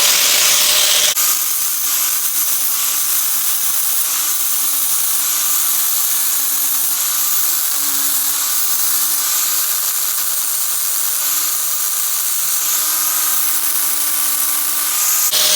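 Handheld power grinder running steadily under load, grinding a MIG weld bead down flush on a thin bandsaw blade: a held motor whine over the hiss of the abrasive on steel.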